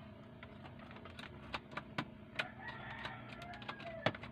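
Faint, scattered clicks and taps from hands handling the wires and test probes inside an opened radio-cassette player, a few sharp knocks standing out over a low background.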